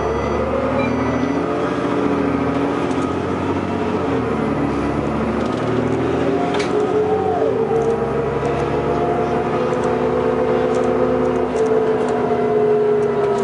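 Diesel engine and drivetrain of a 2002 New Flyer D40LF transit bus accelerating, heard from inside the bus. The engine pitch climbs, drops at a gear shift about four seconds in, then climbs slowly again and falls off near the end.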